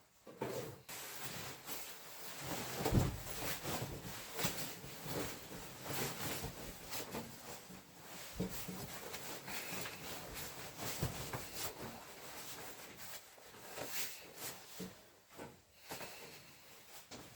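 Continuous rustling and rubbing with irregular light knocks, as of things being handled, with a few louder knocks about three, eleven and fourteen seconds in.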